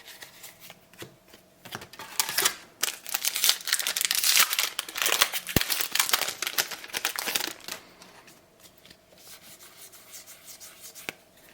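A trading card booster pack wrapper crinkling and being torn open, loudest in the middle, followed by softer rustling and light clicks of cards being handled.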